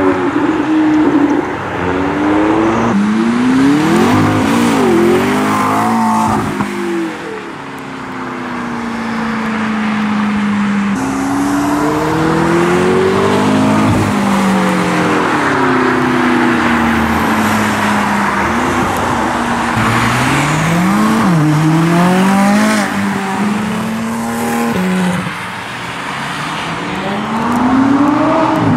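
Several supercars accelerating hard away one after another, their engines rising in pitch and dropping back at each upshift, in a run of separate clips.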